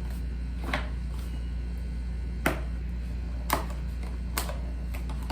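Cardboard camera box and packaging being handled and opened: four scattered sharp taps and clicks over a steady low hum.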